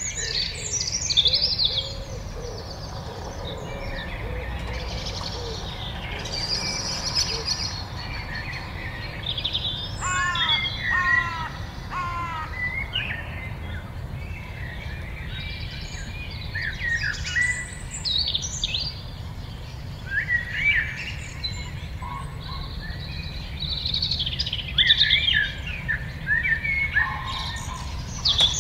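Several songbirds singing and chirping in a dusk chorus, with overlapping short chirps and trills. About ten seconds in comes a run of repeated falling whistled notes. A steady low rumble runs underneath.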